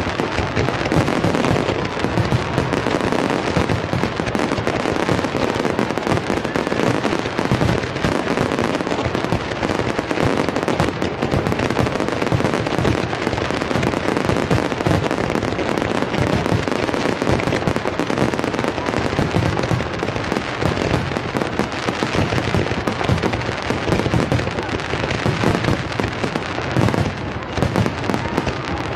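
Fireworks finale barrage heard from close beneath: shells bursting in dense, unbroken succession, many bangs overlapping with no pause.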